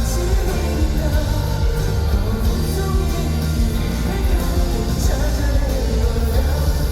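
Pop-rock song playing, a stretch without sung lyrics, with heavy, steady bass notes and drums.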